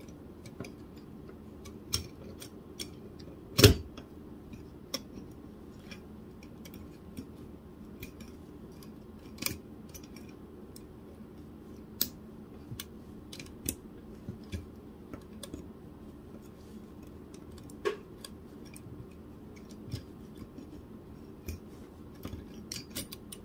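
Scattered small clicks and ticks of metal tweezers against the plastic tab and bushing on the end of a laser printer's fuser roller as the part is worked into place. One sharper click comes about four seconds in, over a faint steady hum.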